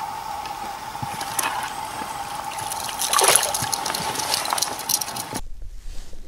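Water splashing and trickling as a hooked crucian carp is pulled up through the surface, loudest about three seconds in, over a steady faint whine. Near the end the sound changes abruptly to a quieter background.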